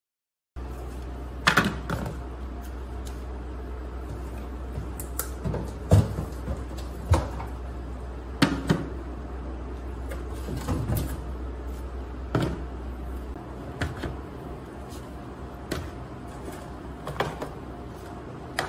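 Knocks and clicks of plastic food containers and fridge doors being handled and set down while a refrigerator is emptied, over a low steady hum that stops about two-thirds of the way through.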